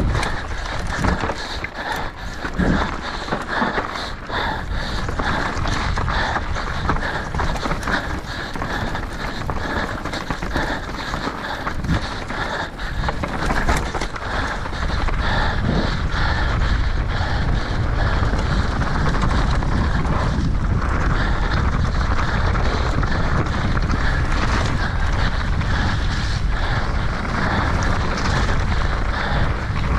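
Mountain bike ridden downhill at race pace: knocks and rattle from the tyres and bike over rough, rocky ground, under wind buffeting the action-camera microphone. About halfway through the knocks give way to a steady, louder rush of wind.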